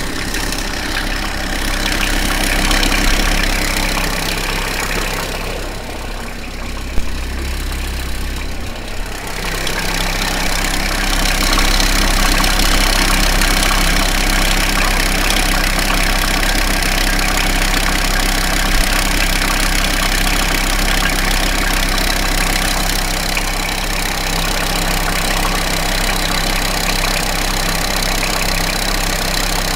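Jeep Grand Cherokee WJ 3.1 five-cylinder turbodiesel engine idling with an odd extra noise, which the owner suspects comes from the belt tensioner, the alternator or the vacuum pump. The noise goes away with a little throttle and is much more noticeable when the engine is cold. There is a sharp click about seven seconds in.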